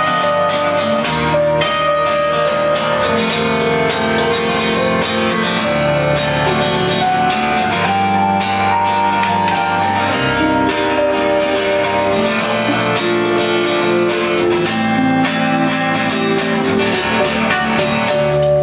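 Acoustic guitar strumming together with a Yamaha keyboard playing held chords and a melody line, an instrumental passage without singing.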